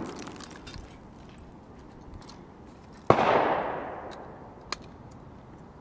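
One shot from a Thompson Contender single-shot pistol firing .410 shotshells, about three seconds in, with a long echo that dies away over a second or so. A short click follows about a second and a half later.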